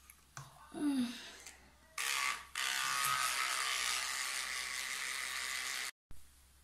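A short handling noise about a second in, then an electric toothbrush buzzing steadily from about two seconds in while teeth are brushed. It stutters once as it starts and cuts off abruptly near the end.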